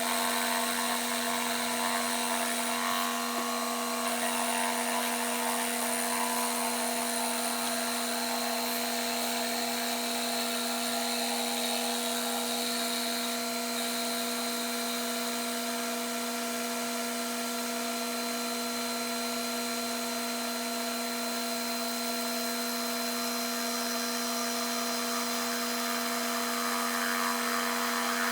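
Milling machine spindle running a 3/4 inch two-flute high-speed steel end mill, cutting a slot for a track: a steady machine whine with several constant tones.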